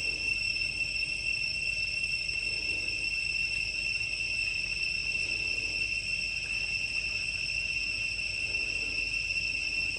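Insects shrilling in a continuous, steady high-pitched drone that doesn't pause or change.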